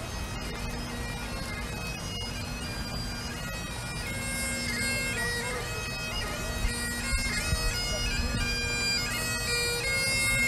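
A single Great Highland bagpipe playing a tune over its steady drone, growing gradually louder.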